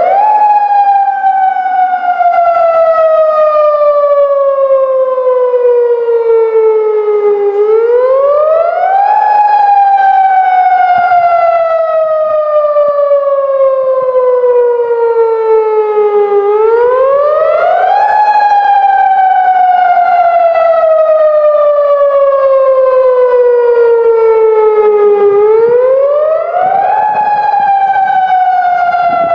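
Federal Signal Modulator 6024 electronic siren sounding its Attack signal. A single pitched tone rises quickly, then slides slowly down over about seven seconds, in a cycle that repeats about every nine seconds.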